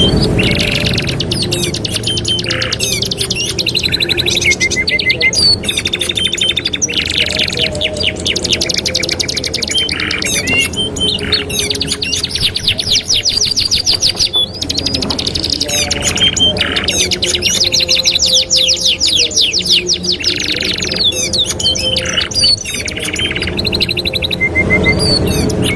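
Domestic canaries singing continuously: long rolling trills of fast repeated notes alternating with short whistles and chirps.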